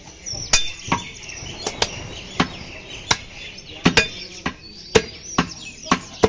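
Heavy butcher's chopping knife hacking beef on a wooden log chopping block: a run of sharp chops, about two a second.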